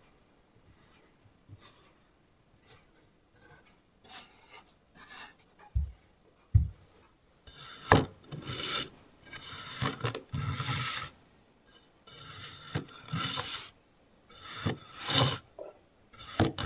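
Kinetic sand being sliced and scraped with a knife blade: soft gritty scraping strokes, sparse at first, then coming one after another and louder in the second half. Two low thumps come a little before the strokes pick up.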